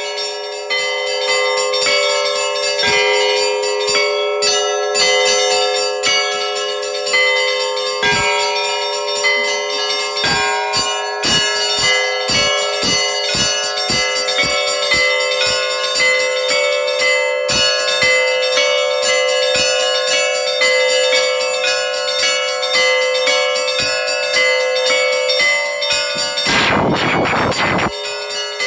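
Russian Orthodox church bells ringing a festal peal (zvon): rapid strokes on the small bells over the lingering hum of the larger ones. About two seconds before the end, a rush of noise sweeps across the sound for a moment.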